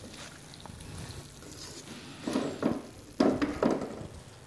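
Spatula stirring chicken tikka pieces through thick masala gravy in a wok, with a few louder strokes a little past halfway.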